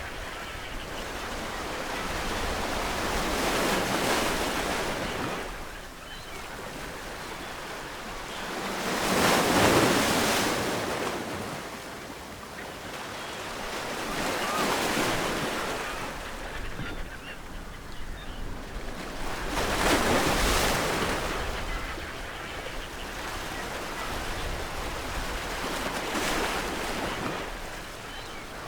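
Ocean waves breaking on a coast, the surf swelling and fading in five surges about five to six seconds apart.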